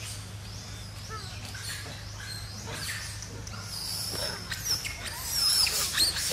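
Macaques squealing and screeching: short high-pitched calls that sweep up and down, coming thicker and louder over the last two seconds as the monkeys run.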